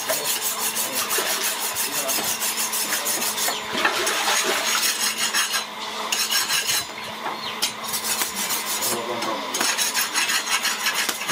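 Kitchen knife being sharpened by rubbing its edge against another knife's blade: rapid, rhythmic metal-on-metal rasping strokes, with a few short pauses.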